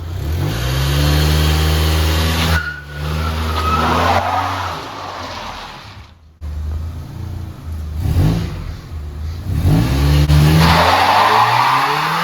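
A car engine revved hard in a burnout attempt with the e-brake pulled: it climbs and holds high, lets off, revs again, blips several times, then revs hard once more. Tyres squeal over the revs, most strongly near the end.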